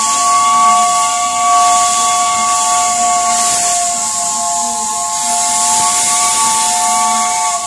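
Steam locomotive's whistle sounding one long, steady chord of three notes, over the loud hiss of steam venting from the engine's cylinder cocks.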